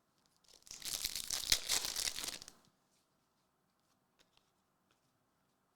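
Trading card pack wrapper being torn open and crinkled for about two seconds, then a few faint ticks as the cards are handled.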